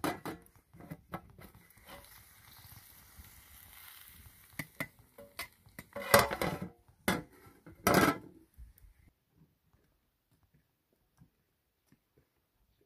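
Aluminium pot lid and slotted metal skimmer clattering as the lid is lifted off a steaming cooking pot. A few light clicks come first, then loud metal clanks about six seconds in and again about eight seconds in.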